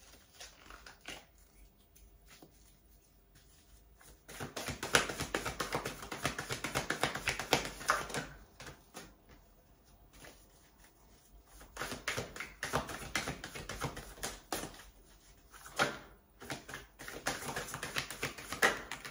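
A tarot deck shuffled by hand: rapid clicking and flicking of cards against each other in three spells of a few seconds each, the first starting about four seconds in, with short pauses between.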